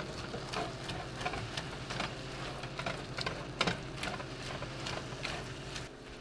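Meat browning in a skillet, sizzling with irregular crackles and pops, over a steady low hum.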